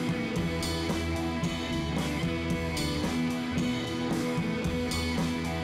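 Background music: an instrumental track with guitar and a steady drum beat.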